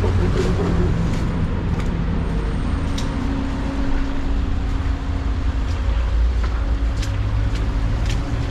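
Heavy-equipment diesel engine running steadily, with a few light knocks.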